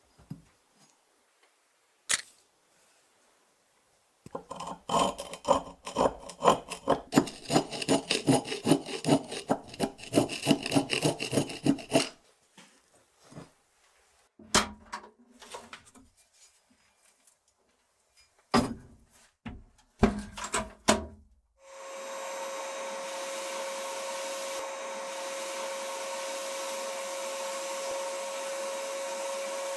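A file scraping back and forth over a rusty iron axe head in quick rhythmic strokes for several seconds, followed by a few scattered knocks and scrapes. Then a sandblasting gun starts up in a blast cabinet: a steady hiss with a steady tone, blasting the rust off the axe head.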